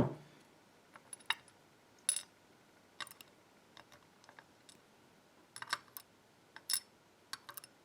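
Light, irregular clicks and taps of small lock pins being handled and set down on a work surface, with one sharper click at the start.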